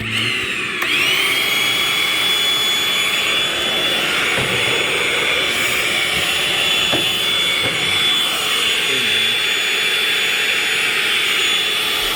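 Vacuum cleaner switched on; its motor whine rises and settles to a steady high pitch within the first second, then runs steadily while sucking heavy dust off a furnace blower motor.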